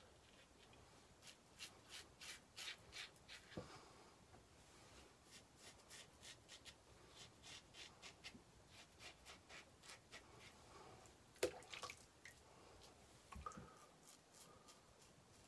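Faint crackling scrape of a Gillette SuperSpeed double-edge safety razor cutting stubble in short strokes, heard as runs of crisp ticks. One sharper click comes about three quarters of the way through.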